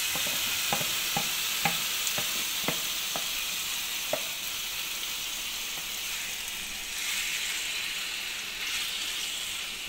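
Marinated chicken strips sizzling in hot oil in a frying pan, a steady hiss. A few light knocks from the spatula and box against the pan come in the first four seconds or so as the chicken is scraped in.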